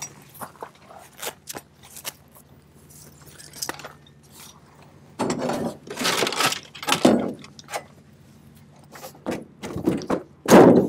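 Irregular metallic clanks, rattles and scrapes from hands-on work at the front of a wrecked car lying on its side, loudest in bursts about five to seven seconds in and again near the end. A low steady hum runs underneath.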